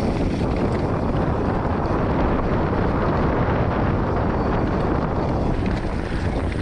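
Wind buffeting the microphone over the steady rumble of a Polygon Siskiu T7 mountain bike's tyres rolling fast down a dirt and leaf-covered trail.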